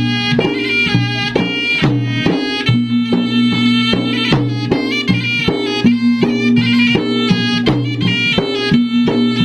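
Traditional Bugis-Makassar gendang music: drums beating at a quick, busy rhythm under a wind instrument that plays a melody over a sustained low tone.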